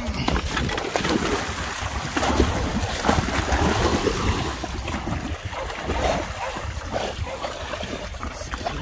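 Water splashing and sloshing as Labrador retrievers swim and paddle in a pool, with wind rumbling on the microphone.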